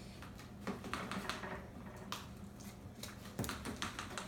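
Quiet, irregular small clicks and taps of slime ingredients being handled as saline solution is poured in to activate the slime.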